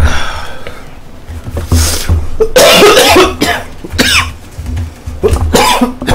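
A man coughing hard again and again, several separate harsh coughs over a few seconds, his throat burning after eating ten cups of extremely spicy Buldak fire noodles.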